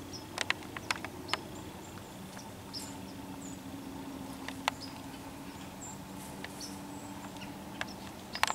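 Irregular sharp ticks and snaps of a whitetail buck stepping through dry grass and leaves, a cluster in the first second or so and a few more later, with faint high bird chirps.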